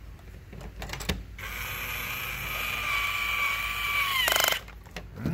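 Kid Nitro battery-powered toy drill driving a screw into the plastic car frame. A few light plastic clicks come first. About a second and a half in, a steady motor whine starts and lasts about three seconds, dipping in pitch at the end, and it stops with a brief burst of rapid clicking.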